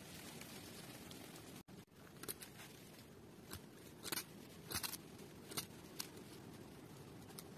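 Paper towel being cut with small scissors: a series of short, sharp snips, about seven in all, the longest a little past the middle.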